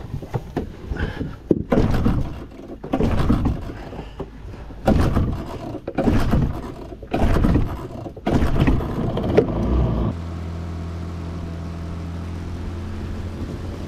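A string of loud, irregular knocks and scrapes, then from about ten seconds in the steady, even drone of a Yamaha 20 outboard motor pushing a small aluminium boat along at constant speed.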